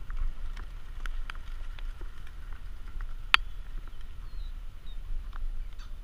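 Wind rumbling on the microphone, with scattered light clicks and taps as young pheasants scramble out of plastic transport crates. One sharper click comes a little past the middle, and a few faint high chirps follow.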